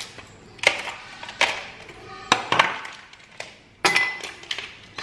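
Ice cubes dropped into a glass mug, each landing with a sharp clink, several clinks spaced about half a second to a second apart; one near the end rings briefly against the glass.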